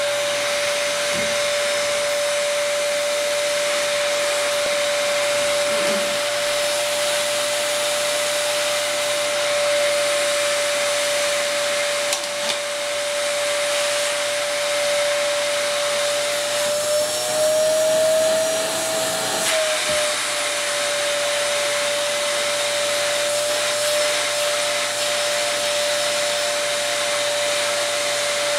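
Dyson canister vacuum cleaner running steadily with a high whine, its hose nozzle being run over a dog's coat. The whine rises slightly in pitch for a few seconds about two-thirds of the way through, then settles back.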